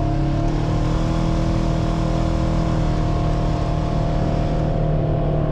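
Side-by-side UTV engine running steadily under throttle, its pitch stepping up slightly about half a second in.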